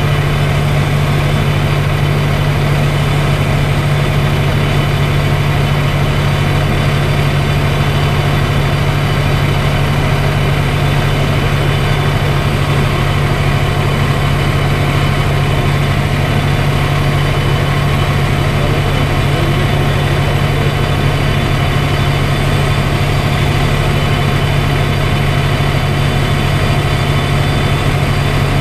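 Light aircraft's piston engine and propeller running steadily in cruise flight, a constant low drone heard inside the cockpit.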